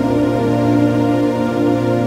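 Background music with slow, sustained chords.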